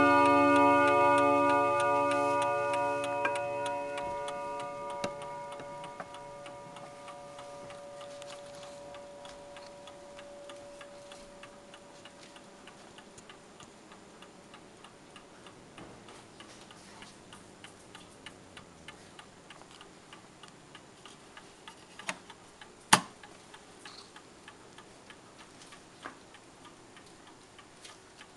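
Mechanical mantel clock: the last notes of its chime on the rod gongs ring out and fade away over the first ten seconds or so, leaving the movement's steady tick-tock. A single sharper click stands out about 23 seconds in.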